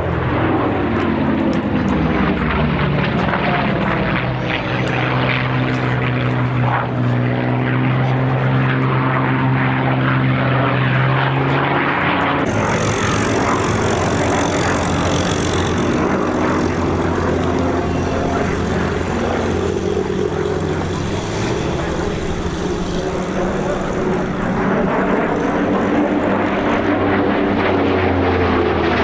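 Lockheed P-38L Lightning's twin Allison V-1710 V12 piston engines and propellers in a display flypast, the engine note dropping in pitch as it passes in the first few seconds, holding steady, then rising again near the end as it comes back round.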